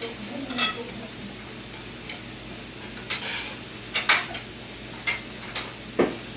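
Steady sizzling hiss of food cooking at the table, with scattered sharp clinks of utensils against dishes.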